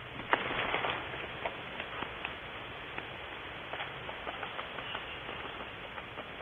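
Rustling, scraping and sharp clicks from a downy owlet moving and flapping inside a wooden nest box, its talons scratching the floor, over a steady hiss. A denser burst of rustling comes about half a second in, then scattered clicks.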